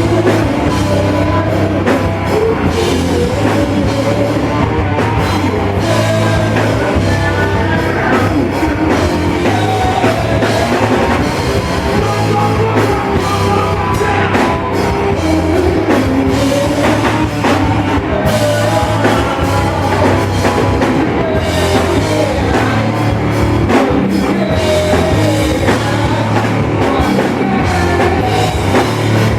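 Loud rock music played by a band, with drum kit and a steady heavy bass line running throughout.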